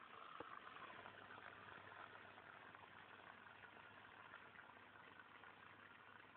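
Near silence: a faint, steady hiss with a low hum underneath and one tiny click about half a second in.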